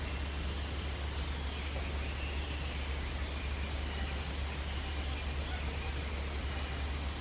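Steady outdoor background noise: an unchanging low rumble under an even hiss, with no distinct events.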